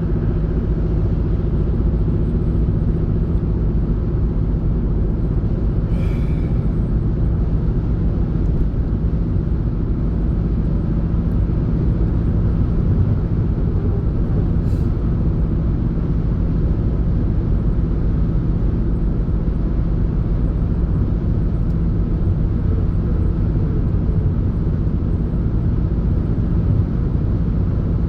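Steady engine and road rumble of an old car being driven, heard from inside the cabin.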